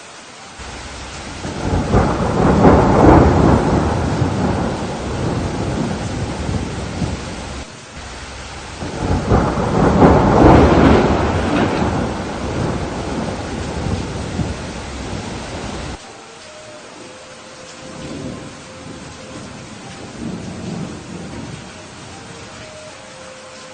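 Steady rain with two long rolls of thunder, the first swelling about two seconds in and the second about nine seconds in, each fading and then cutting off abruptly. After that only rain remains, with a faint low rumble.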